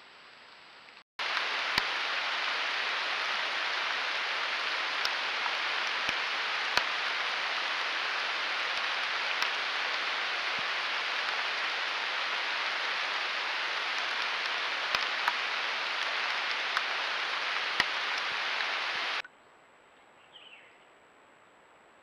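Steady hiss of water with scattered sharp ticks, starting suddenly just over a second in and cutting off near the end. A single faint bird chirp follows.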